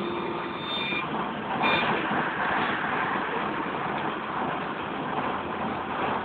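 Cabin ride noise of a LAZ E183D1 trolleybus in motion: a steady rush of road and tyre noise, with a thin high tone for about the first second and briefly again just under two seconds in.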